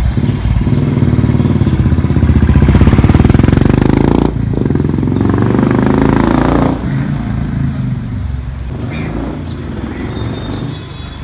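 Royal Enfield single-cylinder motorcycle with a Gold Star-style aftermarket exhaust accelerating away through the gears: the exhaust note climbs, breaks briefly at a gear change about four seconds in, pulls again, then fades as the bike rides off.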